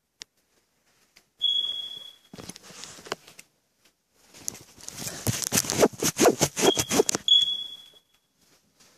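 Footsteps and handling noise as someone walks with the camera, a quick run of loud strokes in the second half. A steady high-pitched tone, like a beep, sounds for about a second twice, once early and again near the end.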